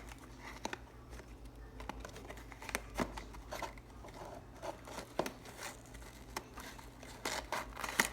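Toy packaging being opened by hand: irregular crinkling, tearing and small clicks of the wrapping.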